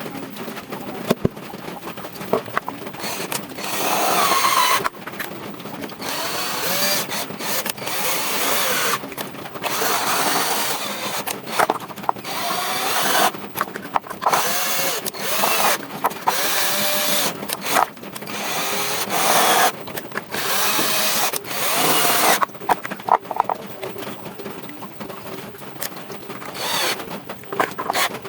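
Handheld power tool running in repeated bursts of one to two seconds, its pitch rising and falling with each burst, separated by brief pauses. Scattered clicks and knocks near the start and end.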